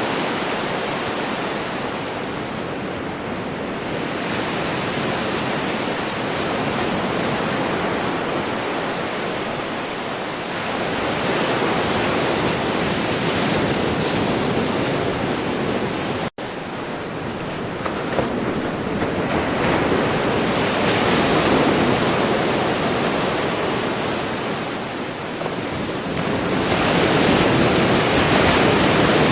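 Ocean waves washing onto a shore: a continuous surf rush that swells and eases every few seconds. It cuts out for an instant about halfway through.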